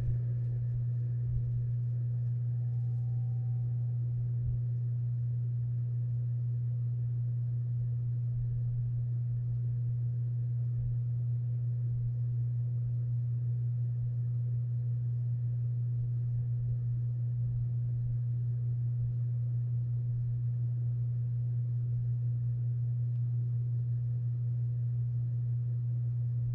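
Steady, unchanging low-pitched hum.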